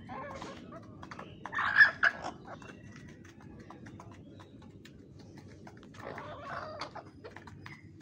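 Desi hens clucking as they feed together from a bowl, with many quick sharp taps of beaks pecking at the feed. The loudest burst of calls comes about two seconds in, with more clucking near the end.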